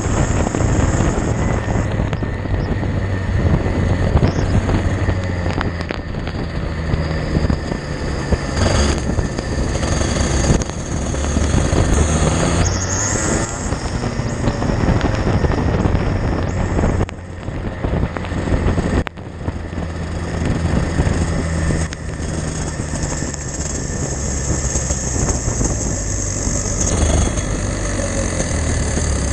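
Racing kart engine heard onboard at speed, its pitch changing with the throttle through the corners, over wind and spray noise on the camera microphone. The engine sound drops away briefly twice past the middle.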